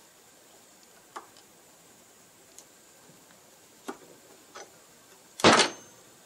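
Small metal parts of a clutch master cylinder being handled and fitted together on a workbench: a few light, separate clicks, then a louder metallic clatter about five seconds in.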